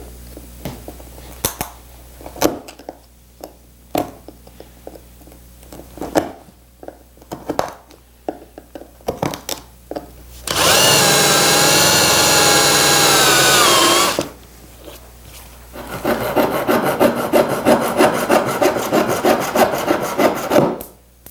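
Small hand chisel chipping and scraping an old wooden dowel out of a chair arm's hole: scattered light clicks and scrapes. About ten seconds in a power tool whines loudly for about four seconds and drops in pitch as it stops. Then a handsaw cuts through a wooden dowel in steady back-and-forth strokes, about three a second.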